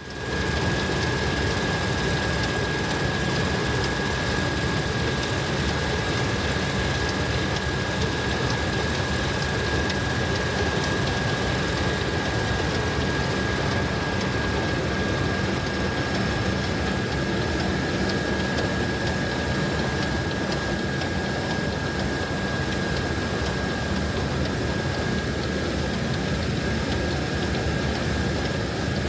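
Heavy farm machinery running steadily, an engine drone with a constant high whine over it, fading up at the very start.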